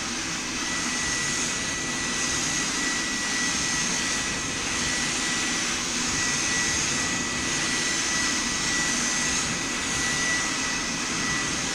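HVLP spray gun spraying lacquer: a steady rushing hiss of air with a thin, steady high whine running under it.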